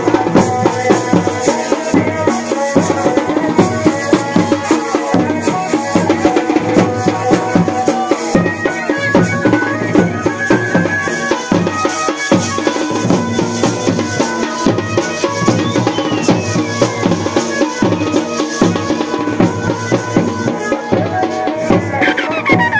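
Pahari folk dance music: steady, rapid drumming with rattling percussion under a sustained melody.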